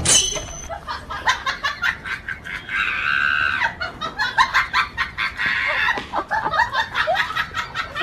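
Hens clucking and squawking in quick, short calls, with a longer squawk about three seconds in.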